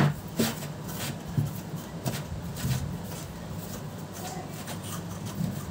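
Rubbing and handling noises with a sharp click at the start and a few faint knocks, as a cloth is worked over the opened, dusty Sony subwoofer, over a low steady hum.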